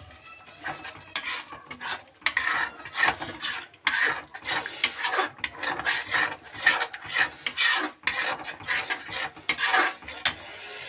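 Slotted steel spoon stirring a thick, creamy gravy and scraping the bottom and sides of a metal kadhai, in repeated strokes about two a second.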